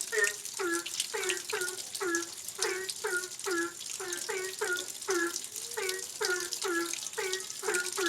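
Steady rain hiss with a short, pitched animal call repeated over and over, about two to three calls a second, each call dipping in pitch.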